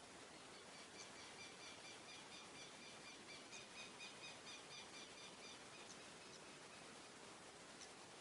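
A bird calling in a fast run of short, high, repeated notes, about five a second, for some four seconds, then a few single chirps near the end. Beneath it is a faint, steady hiss of natural ambience.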